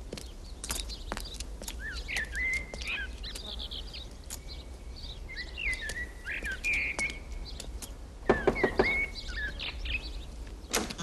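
Small birds chirping in short bursts, over footsteps crunching on a gravel lane. About eight seconds in comes a quick run of a few louder knocks.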